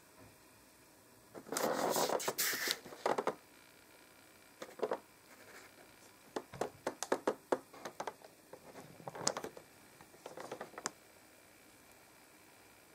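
A cardboard toy box with a clear plastic window being handled by hand: a burst of crinkling and rustling a second and a half in, then a run of scattered light clicks, taps and rustles as the box is turned.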